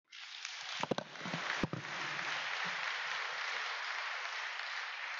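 Congregation applauding, starting suddenly and holding steady, with a few sharp knocks about a second in.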